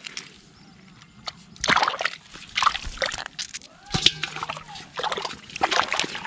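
Hands splashing and sloshing in a small hole of muddy, soapy water, several sharp splashes about a second apart.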